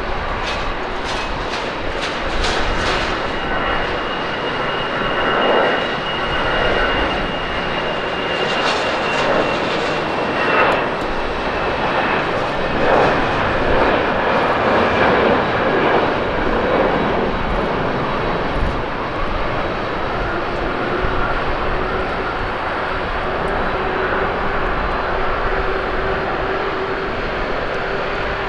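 Airbus A320 jet engines at takeoff thrust through the takeoff roll and lift-off: a loud, steady jet noise with a high fan whine that slowly drops in pitch as the aircraft passes. After about 20 seconds a lower steady hum comes in as it climbs away.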